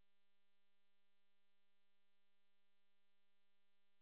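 Near silence, with only a faint steady electrical buzz that holds one unchanging pitch.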